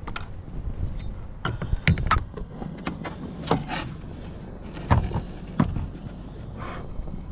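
Wind rumbling on the microphone, with a handful of sharp knocks and rattles from a landed red drum and the fishing gear being handled on the boat. The two loudest knocks come about two and five seconds in.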